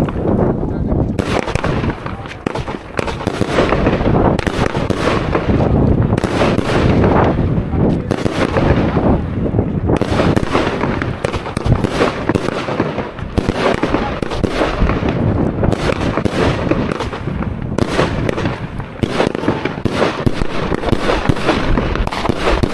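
Two 13-shot fireworks batteries (cakes) firing together: a dense, nearly unbroken string of launch shots and aerial bursts, loud throughout.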